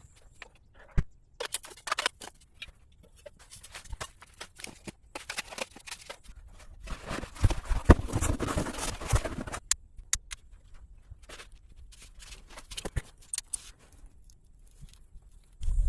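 Hand-work handling sounds: scattered sharp clicks and knocks, with a stretch of scraping and rustling about seven seconds in that lasts some two seconds.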